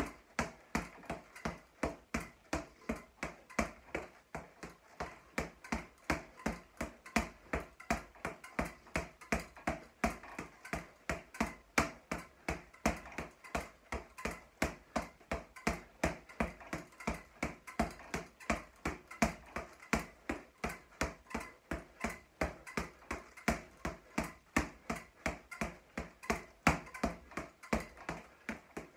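Boxing gloves striking a floor-to-ceiling double-end ball in a fast, steady run of smacks, about three a second.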